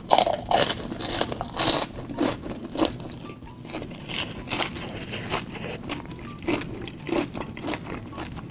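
Close-miked crunching and chewing of crispy food: sharp crunchy bites, loudest in the first three seconds, then softer chewing.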